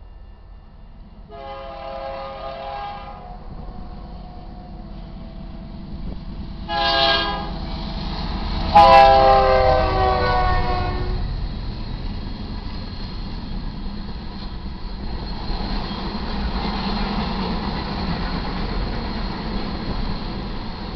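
Horn of a GE C44-9W diesel locomotive sounding for a grade crossing: a long blast, a short one, then a loud long blast that drops in pitch as the locomotive passes close by, with a sharp crack as it begins. After that the locomotive and its grain hopper cars rumble and clack steadily past.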